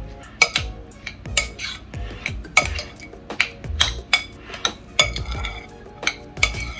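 Metal slotted spoon stirring coleslaw in a glass mixing bowl. The spoon clinks against the glass at an irregular pace of about two a second, each clink with a short ringing note, over dull knocks of the bowl and the mix.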